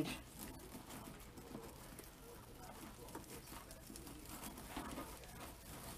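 Faint rustling and crinkling of plastic deco mesh as it is gathered and ruffled into a wreath frame by hand.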